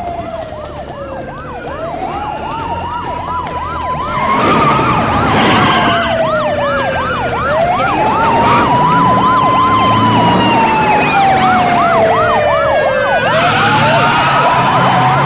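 Police car sirens sounding together: one in a slow wail rising and falling every few seconds, the other in a fast yelp, with vehicle noise underneath. They grow louder about four seconds in.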